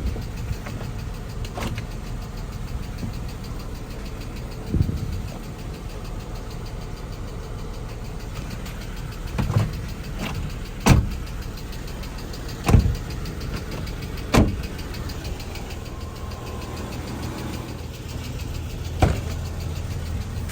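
Car engine idling steadily, with about seven short sharp knocks and clicks spread through, such as doors and handling inside a vehicle.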